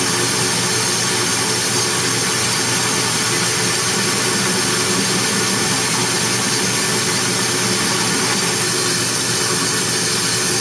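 Shopmaster 2000 lathe, driven by a 3 horsepower treadmill motor, running steadily while a high-speed-steel tool takes a cut along an aluminium bar.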